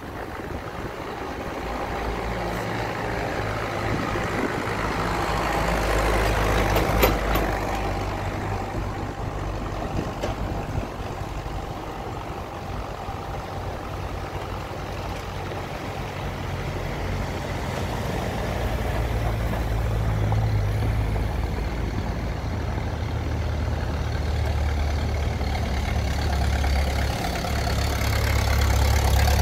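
Small vintage tractor's engine running steadily, getting louder as it approaches and loudest near the end.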